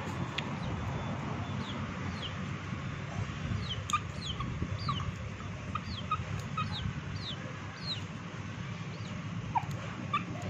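Chickens calling with a run of short, high, falling peeps and clucks, at times about two a second, over a steady low rumble, with a few sharp taps.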